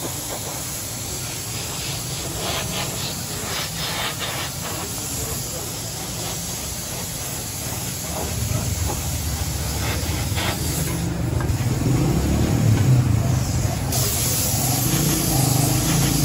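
Gravity-feed paint spray gun hissing steadily as it sprays paint onto a motorcycle engine cylinder's fins. A low rumble grows louder in the second half.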